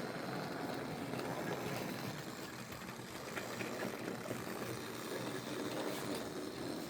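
A model train locomotive running slowly on track, with the steady whir of its small electric motor and wheels rolling over the rails and points, with a few light clicks.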